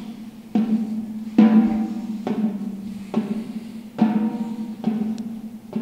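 Drum struck in a slow, even beat to keep time for dancers' floor exercises. There are seven strokes, a little under a second apart, and each one rings out with a low tone that fades.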